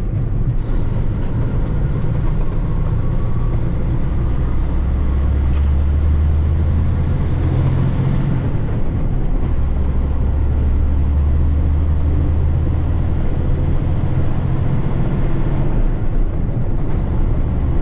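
Loaded log truck's diesel engine running under load as it drives out, a steady low drone that swells twice in the middle.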